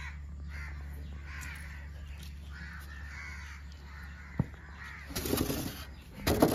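Crows cawing repeatedly over a steady low hum, with a sharp click about four seconds in and loud rustling handling noise near the end.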